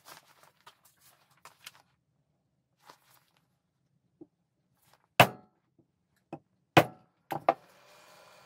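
Light clicks from handling pine blocks, then loud wooden knocks: one, another a second and a half later, and a quick double knock, as the pieces are pressed and struck together over steel ball-bearing balls to mark where the joining holes go.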